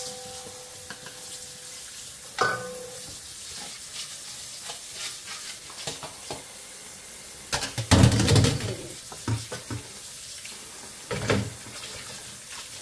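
Cold water running steadily from a kitchen tap onto rice noodles in a stainless steel bowl, rinsing off their starch. A few metal clanks from the perforated steel strainer basket and bowl break in, the loudest about eight seconds in.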